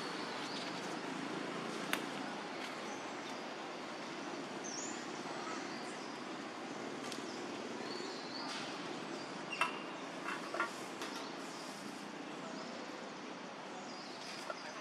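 Outdoor ambience: a steady hiss with a few short high chirps. There are sharp clicks about two seconds in and a cluster of three near the middle, the loudest of them near the middle.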